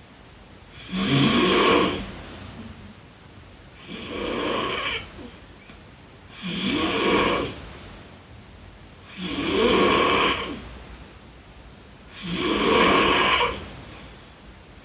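A sleeping girl snoring: five snores, each about a second long, one every two and a half to three seconds.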